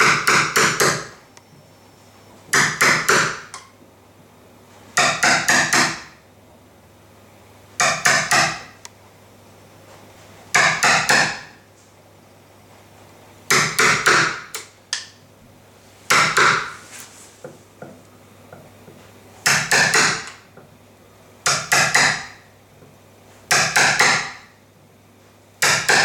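Hammer tapping a wood chisel into the edge of a timber door, scoring a groove along the pencil outline to rebate the latch's front plate. The strikes come in short runs of a few quick taps, repeating every two to three seconds.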